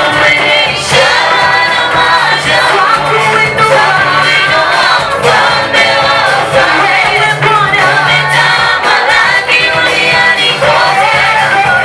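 A choir singing a Swahili gospel song, several voices together.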